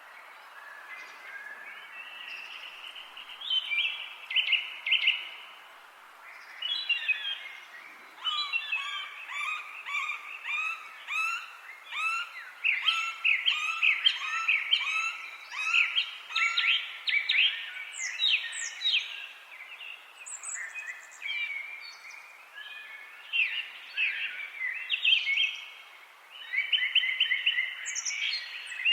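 Several songbirds singing at once, in overlapping chirps, whistled phrases and rapid repeated-note trills, over a faint steady background hiss.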